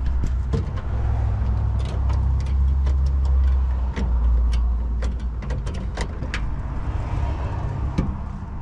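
A low vehicle rumble swells and then eases, with scattered sharp metallic clicks and taps from hand work on the e-brake linkage.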